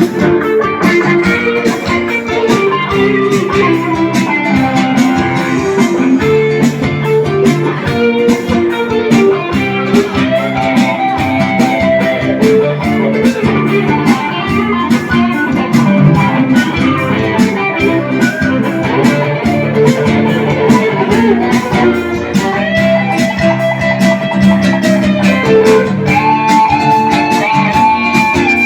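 Guitar music: plucked strings playing sustained melody lines over a steady, fast rhythm.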